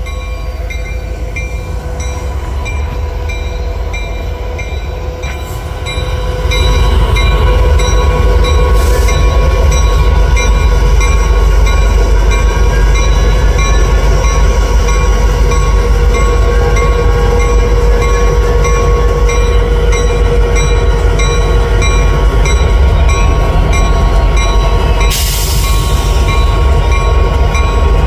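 CN diesel-electric freight locomotive running close by: a loud, low engine rumble with a steady hum. It gets louder about six seconds in, and there is a short burst of hiss near the end.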